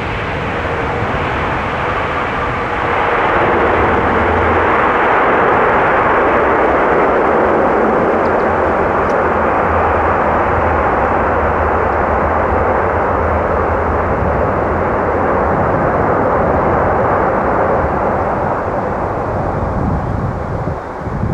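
Airbus A400M's four turboprop engines and propellers running loudly as the aircraft rolls out down the runway after landing. The noise swells about three seconds in and fades a little near the end as the aircraft draws away.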